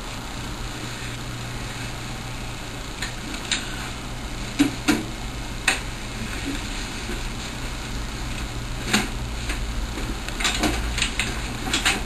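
A steady low hum, with scattered light knocks and rustles of a dust cover being handled and fitted over an air conditioner; the knocks come thicker near the end.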